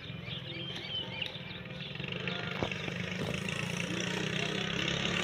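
Zebu cattle tearing and chewing cut grass, with a few soft crunches, over a steady low engine hum. Birds chirp in the first second or so.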